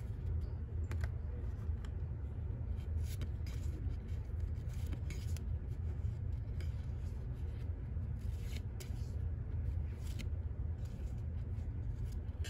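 Baseball trading cards being slid one by one through the hands, giving light scraping flicks at irregular moments over a steady low hum.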